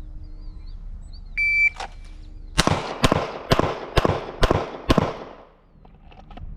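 A shot timer gives one short beep, then a handgun fires six shots in quick succession, a little under half a second apart, each with a short echo. This is a timed six-round string on a police qualification course.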